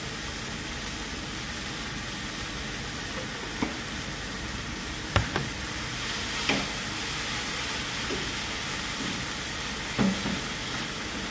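Fried rice sizzling steadily in a frying pan over a gas flame while it is stirred with a wooden spatula, with four sharp knocks of the spatula against the pan.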